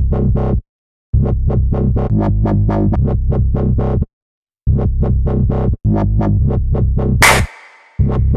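Electronic dance music with a steady, fast beat and heavy bass. It cuts out briefly twice and has a crash-like hit about seven seconds in.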